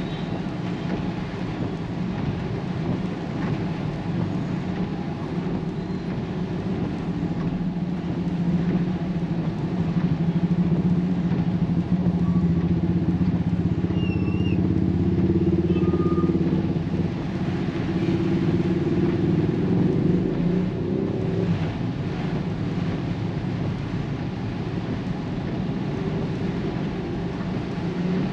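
Road traffic: a vehicle engine running with a steady low hum over road noise. It swells louder for several seconds in the middle and then eases back.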